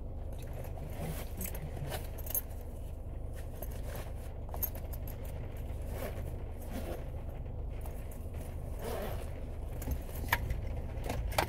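Steady low drone of a car heard from inside the cabin, with scattered light jingling and rattling clicks.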